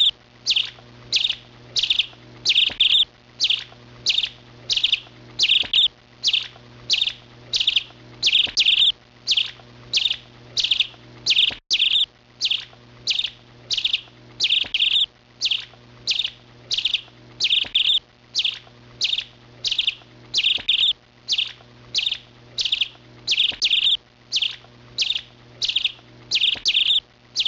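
A small bird chirping over and over in an even rhythm, about two short, high chirps a second.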